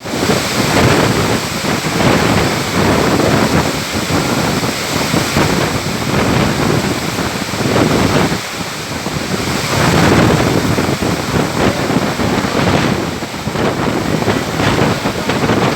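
Strong storm wind gusting and buffeting the microphone, likely with heavy rain, a loud rushing noise that swells and eases every second or two.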